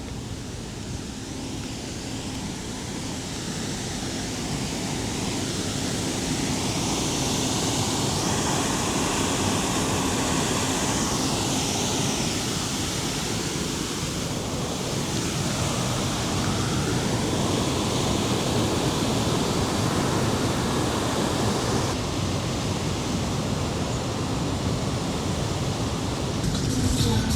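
Steady rushing water at the shore, growing louder a few seconds in, with a low steady hum underneath.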